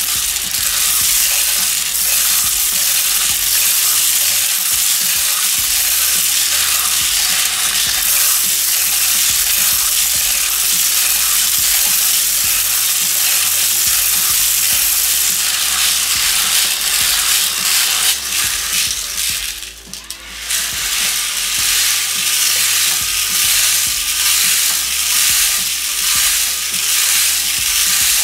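Fine gravel rattling without a break as it is poured from a plastic bottle into the plastic drum of an RC concrete mixer truck and tumbles inside it, with a brief lull about two-thirds of the way through.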